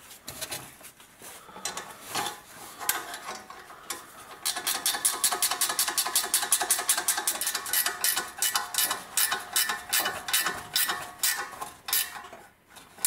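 Ratchet wrench clicking quickly and evenly, several clicks a second, as an exhaust pipe clamp is tightened. It comes after a few seconds of scattered metallic clinks and knocks, and the clicking stops shortly before the end.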